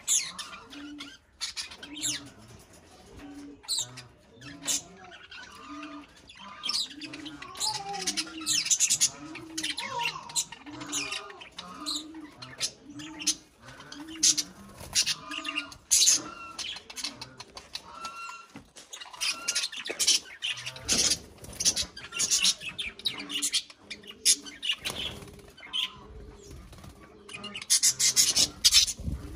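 Budgerigars chirping and squawking, with sharp wing flaps as two of them scuffle. A low cooing call repeats steadily in the background for much of the first half.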